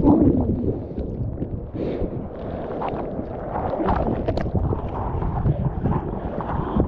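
Turbulent whitewater rushing over the microphone for about the first second as a broken wave passes, then hands splashing through foam in paddle strokes over a low rumble of wind and surf on the microphone.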